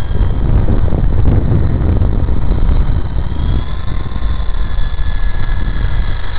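Electric RC helicopter (WLtoys V913) in flight: a steady high whine from its motor and rotor that drifts slightly up and down in pitch, over a heavy gusty rumble of wind on the microphone.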